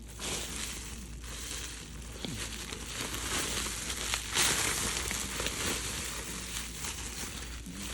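Doll packaging crinkling and rustling as it is pulled and torn off the doll by hand, with small crackles throughout and the loudest crumpling about four and a half seconds in.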